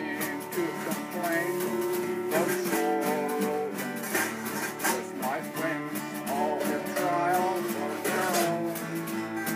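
Acoustic guitar strummed, with a man singing along to it.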